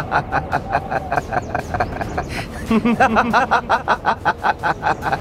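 A man laughing loudly in a long run of rapid 'ha-ha' pulses, about five a second: a theatrical villain's laugh that swells again a little before halfway.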